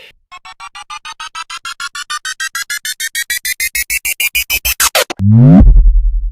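Synthesized build-up sound effect: a synth tone repeated in short pulses that speed up and rise steadily in pitch for about five seconds. Then comes the drop: a fast downward pitch sweep into a deep, sustained bass hit.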